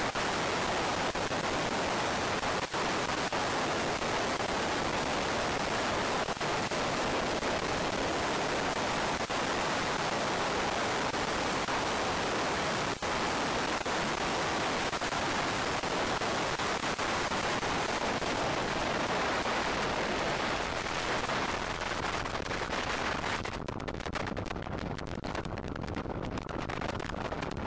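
Light aircraft in flight, heard from a tail-mounted camera: a steady rush of wind and engine noise on the final approach. Near the end the rush drops away and a rapid, uneven crackle of sharp pops from the engine comes through as the plane settles onto the runway.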